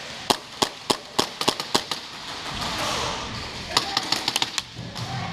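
Airsoft guns firing: sharp snapping shots at irregular intervals, several a second at first, then a quick burst of shots about four seconds in.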